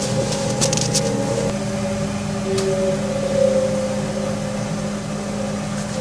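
A steady droning hum of several held tones, low and mid-pitched, with the upper tones sliding to new pitches a couple of times: the unexplained "strange noise" that woke the recorder.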